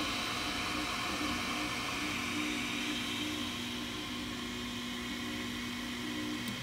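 Flashforge Finder 3D printer running near the end of a print: its stepper motors whine in steady low tones that stop, restart and change pitch as the print head moves, over a steady hiss.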